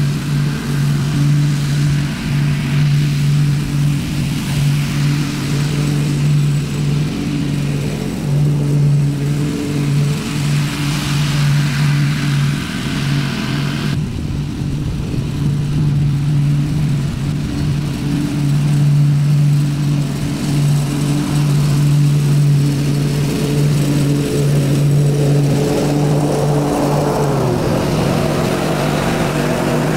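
Ariens Zoom 42 zero-turn mower's engine running steadily while mowing. It grows louder as the mower comes close near the end, when its pitch dips slightly.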